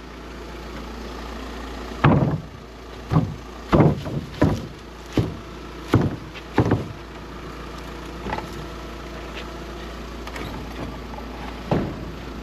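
A vehicle engine idling steadily, with a run of irregular heavy clunks and knocks from objects being handled, mostly between about two and seven seconds in, and one more near the end.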